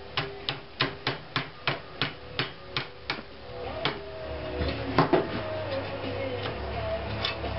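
A hammer striking a thin sheet-steel panel to bend its edge. It taps in quick even strokes, about three a second for three seconds, then lands a couple of slower, heavier blows, the loudest about five seconds in.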